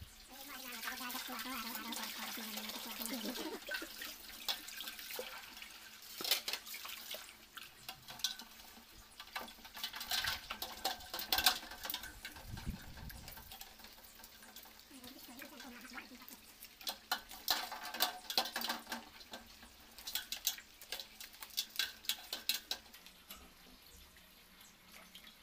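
Tap water running into a steel basin for a few seconds, then a toothbrush scrubbing a mud crab's shell in the water: bursts of quick scratchy strokes with splashing.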